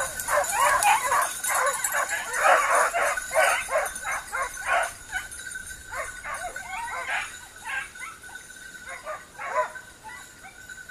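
A pack of Basset Griffon Vendéen hounds baying in short, overlapping yelps and cries, dense for the first half and thinning out toward the end: running hounds giving tongue as they hunt.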